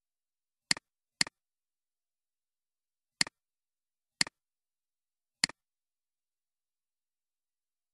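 Computer mouse clicks: five short, sharp clicks at uneven intervals, two of them close together about a second in. Each is a quick double tick, the button going down and coming back up.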